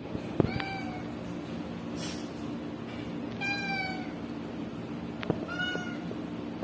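Domestic cat meowing three times, each meow a short, slightly falling call: a cat begging for its food. A sharp tap comes just before the first meow and a softer one before the last, over a steady low hum.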